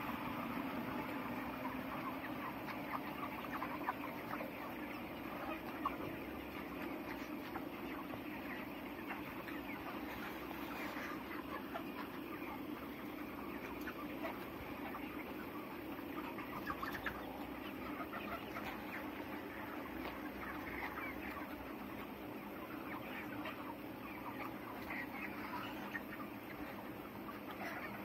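A large flock of 31-day-old broiler chickens clucking, many short calls from many birds overlapping into a constant chatter.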